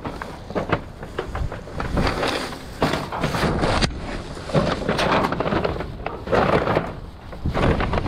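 Plastic trash bags rustling and crinkling as they are handled and carried close to the microphone, in irregular bursts with some bumps.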